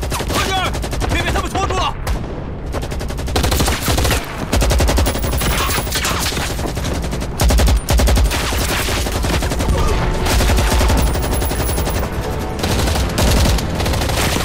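Heavy battle gunfire: automatic weapons firing in rapid, overlapping strings of shots, dense and loud, with a brief lull about two seconds in. Short shouting is heard near the start.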